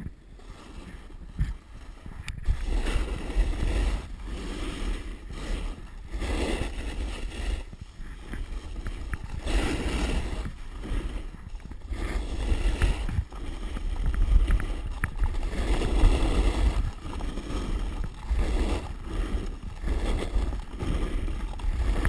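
Snowboard sliding and carving down hard-packed snow, the board's edge scraping over the crust in swells every few seconds, with wind buffeting the microphone.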